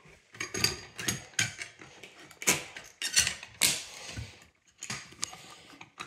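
Irregular clicks, knocks and rattles of hands working an FCI MS-2 fire alarm pull station, lifting its cover and gripping the handle.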